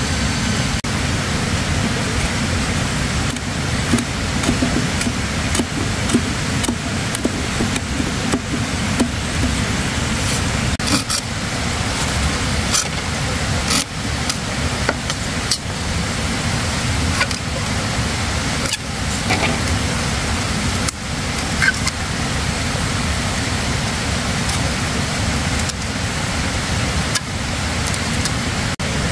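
Scattered sharp knocks and scrapes of a machete and hand saw working green bamboo, over a loud steady low rumble.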